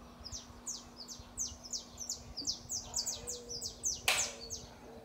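Small bird chirping rapidly, a quick run of high notes that each sweep downward, several a second. About four seconds in, a short burst of noise cuts across it.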